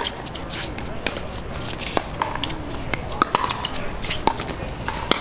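Pickleball paddles striking a hard plastic ball in a fast rally: sharp pops at an irregular pace of roughly one or two a second, some louder and some fainter, with faint voices behind.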